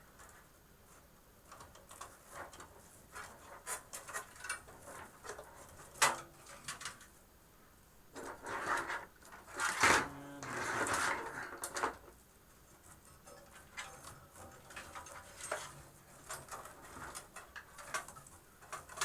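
Power supply cables being handled and bundled inside a computer case: rustling and rubbing with scattered clicks and knocks, a sharper knock about six seconds in and a louder stretch of rustling around ten seconds in.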